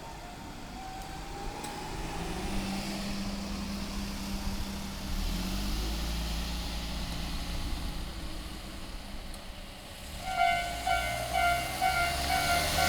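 Vehicle noise swells gradually. About ten seconds in, the level-crossing warning alarm on the Tobu Urban Park Line starts ringing in rapid repeated strokes.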